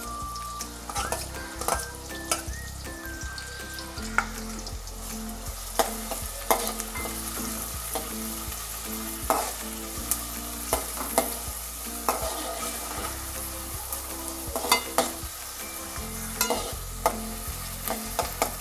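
Chopped onions and green chillies sizzling in hot oil in a metal pot, stirred with a metal spatula that scrapes and clicks against the pot many times.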